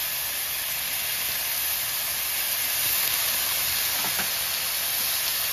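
Sliced onions and tomatoes sizzling in hot oil in an aluminium kadhai, a steady hiss.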